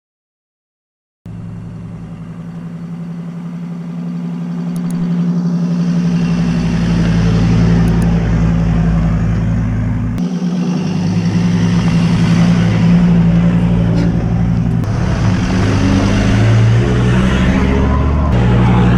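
Troller T4 4x4's engine running as the vehicle drives. It starts about a second in and grows louder over the next several seconds, with a brief dip in its low rumble about halfway through.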